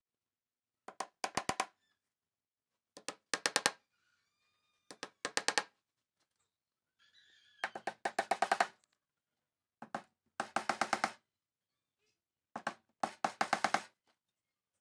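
Claw hammer driving nails into a plywood sheet on a workbench, six times over: each nail gets one setting tap, then a quick run of four to six blows.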